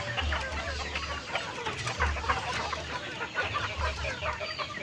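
A flock of free-range village chickens (ayam kampung), hens and roosters, clucking and calling over one another in a busy, continuous chatter. A low rumble comes and goes underneath.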